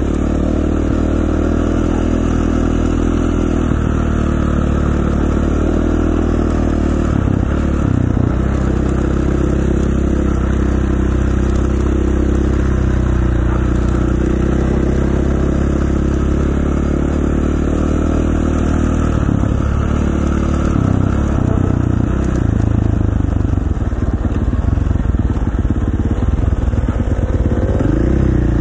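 Dirt bike engine running while riding, its pitch stepping up and down with throttle and gear changes, over a steady rushing noise.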